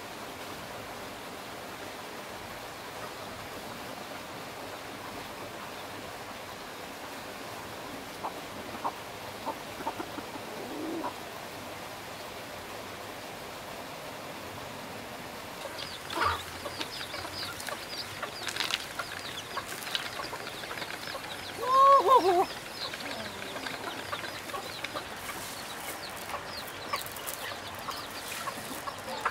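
Chickens clucking and calling, sparse at first over a faint steady hiss, then busier in the second half, with one loud squawk about two-thirds of the way through.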